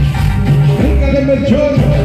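Loud Latin dance music played through a DJ sound system, with a steady pounding bass beat; a melody line comes in about a second in.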